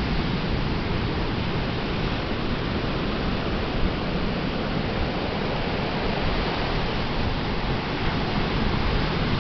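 Ocean surf washing onto a beach: a steady, even wash of breaking waves with no single crash standing out.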